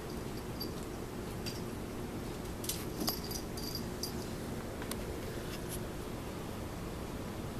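Steady low hum with short, faint high-pitched chirps that come in small runs, and a few soft clicks with a light knock about three seconds in.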